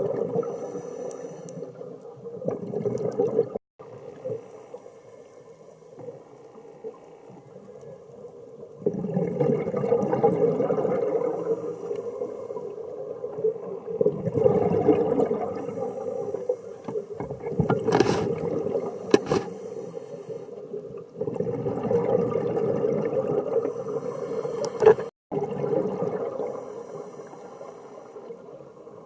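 Underwater sound of a scuba diver breathing through a regulator: surges of exhaled bubbles lasting a few seconds, with quieter gaps between, over a steady low hum.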